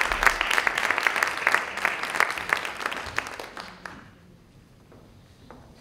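An audience clapping for a prize winner, which dies away about three and a half seconds in and leaves a quiet room.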